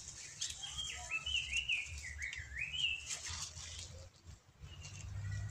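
A bird singing a warbling phrase of quickly rising and falling notes for about two and a half seconds, with scattered short rustles and clicks and a low steady rumble underneath.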